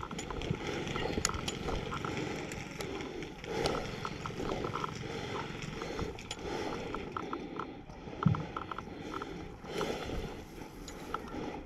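Hurried footsteps through dry, tall grass, the stalks swishing against clothing and gear, with small clicks and rattles of carried kit; one heavier thump about eight seconds in.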